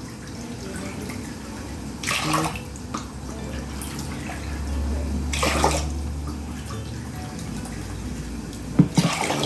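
Water poured from a cup into a pot of rice, in three separate pours about three seconds apart.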